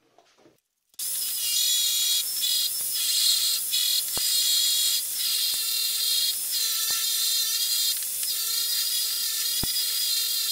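Corded electric drill driving a flexible shaft with a badly worn flap sanding wheel that sands the inside of a wooden bowl. It starts about a second in and makes a loud, steady, high whine of several pitches that dips briefly now and then.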